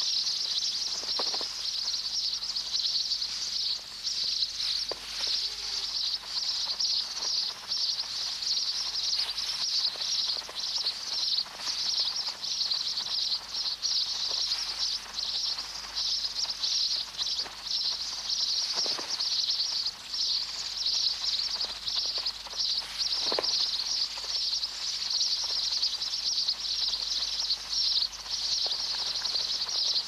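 Dense, unbroken high-pitched chattering of a red-billed quelea colony, mostly fledgling chicks calling insistently to beg food from the adults.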